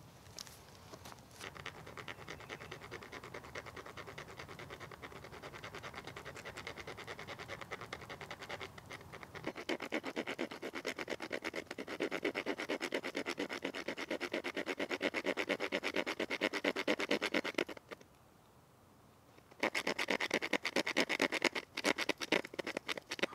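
Small serrated saw blade of a pocket knife cutting the slots between the tines of a hardwood fork: quick back-and-forth rasping strokes, louder about halfway through, with a short pause near the end before the sawing resumes.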